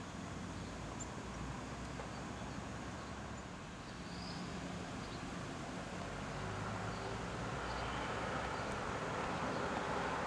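Steady outdoor background noise, a low hum and hiss, slowly getting louder towards the end, with a few faint high chirps.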